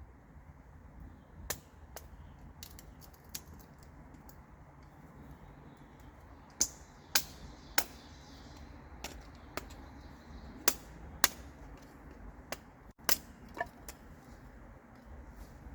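Campfire crackling: irregular sharp pops, a dozen or more, scattered over a faint steady low background, most of them bunched in the middle of the stretch.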